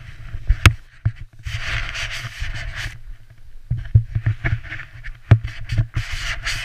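Wind buffeting an action-camera microphone as an uneven low rumble, with a few sharp knocks, the loudest about a second in and again about five seconds in, and two short spells of scraping hiss.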